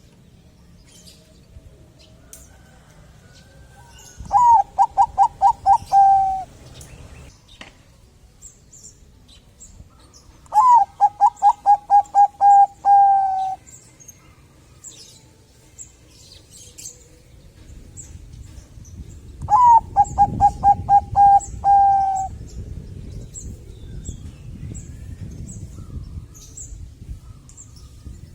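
Zebra dove (Bangkok-type perkutut) singing: three bouts of its cooing song, each a quick run of short notes that ends in a longer drawn-out note, several seconds apart. Faint high chirping runs underneath.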